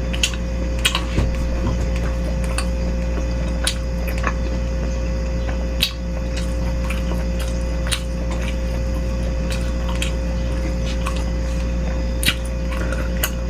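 Someone eating bakso with beef ribs close to the microphone: scattered wet chewing and smacking clicks, over a steady low electrical hum.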